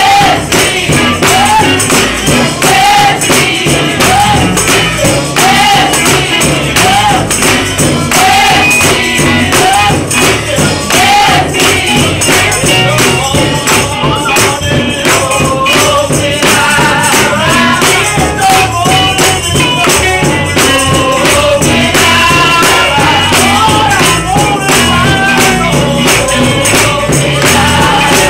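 Gospel praise singing by a group, with hands clapping on the beat. The music is loud and has a dense, steady rhythm.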